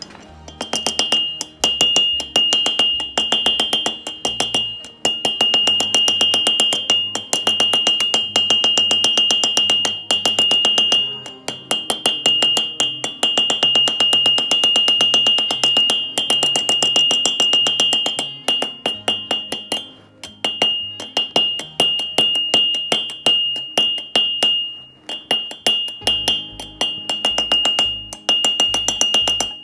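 Hand hammer striking a red-hot wrought iron wagon iron on a steel anvil in rapid, steady blows, each strike ringing off the anvil, with a few brief pauses.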